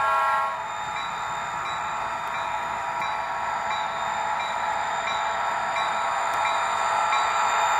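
HO-scale model diesel locomotives' TCS WowDiesel sound decoders playing a turbocharged EMD 645 prime mover through small sugar cube speakers: a steady running drone that slowly grows louder as the engines approach. A multi-tone horn blast cuts off about half a second in.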